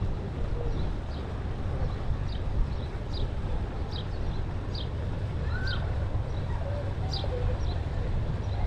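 A bird calls over and over with short high chirps, about one a second, over a steady low rumble.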